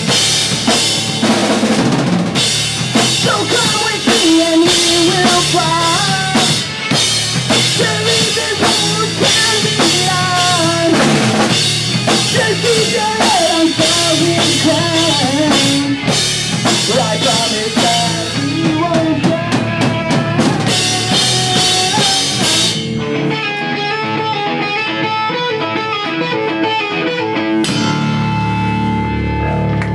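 Pop punk band playing live: full drum kit with constant cymbal crashes and snare, over loud amplified guitars and bass. About three-quarters of the way through the drums stop and the guitar chords are left ringing, with a low sustained chord near the end.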